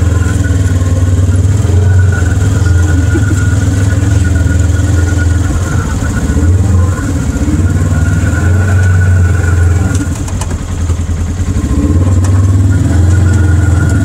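Polaris RZR side-by-side's engine running while driving, loud and continuous, its note rising and falling with the throttle and easing off briefly about ten seconds in.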